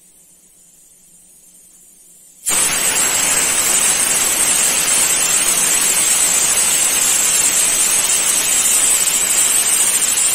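Stovetop pressure cooker venting steam through its weight valve: a loud, steady hiss that starts suddenly about two and a half seconds in. It is the sign that the cooker has come up to pressure, one of the whistles counted while cooking.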